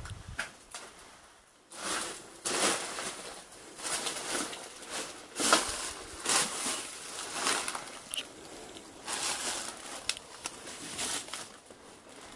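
Paper rustling and crinkling in irregular bouts, beginning about two seconds in: old letters being handled and unfolded.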